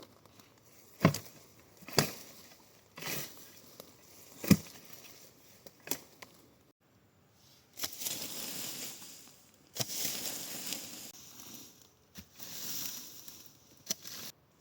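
Several sharp thumps about one, two and four and a half seconds in, with a few lighter clicks, then three stretches of rustling and crunching, each a second or two long.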